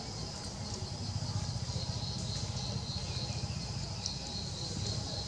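Outdoor background ambience: a steady high-pitched insect drone over a low, continuous rumble.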